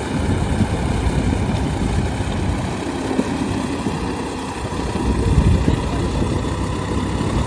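Diesel tractor engines running under load as a Massey Ferguson tractor stuck in flooded paddy mud is pulled out by another tractor. The engine noise is steady and low, swelling briefly about five and a half seconds in.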